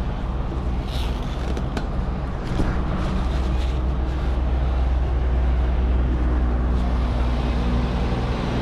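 A large diesel engine idling steadily, a little louder from about two and a half seconds in, with a few light clicks and taps over it.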